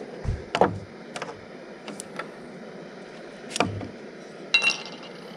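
Camp coffee gear being handled: a few hard knocks and lighter taps as items are set down, and a short metallic clink that rings briefly about four and a half seconds in.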